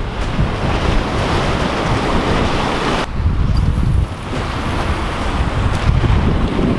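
Ocean surf washing and breaking against the boulders of a rock jetty, with strong wind buffeting the microphone as a heavy rumble underneath. The hiss of the surf dips briefly about three seconds in.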